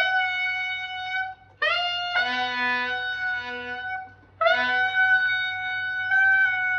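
Tenor saxophone playing a held altissimo note, written high G, three times, with short breaks about a second and a half and four seconds in.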